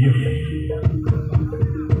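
Javanese gamelan music accompanying a horse dance: metallophones play a repeating two-note pattern over a low sustained tone, with several sharp hand-drum strokes in the second half.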